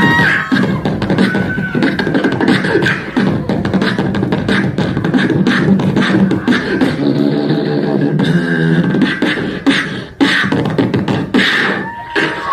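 Live beatboxing in a fast drum-and-bass style: rapid vocal kick and snare hits over a buzzing bass line. Near the end a held, whistle-like vocal tone comes in and slides upward.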